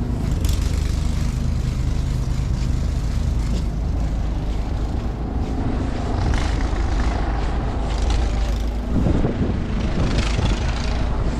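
City street traffic: a steady low rumble of vehicles, with swells as vehicles pass about six and ten seconds in.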